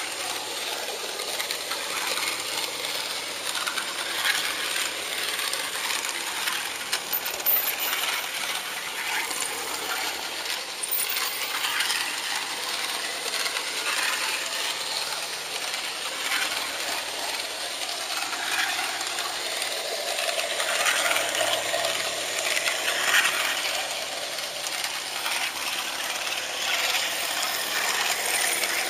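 HO-scale model train running along the track, a steady, dense metallic clatter and rattle of its wheels on the rails.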